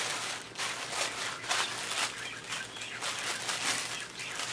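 Packaging rustling and crinkling in irregular bursts as a package is handled and opened by hand.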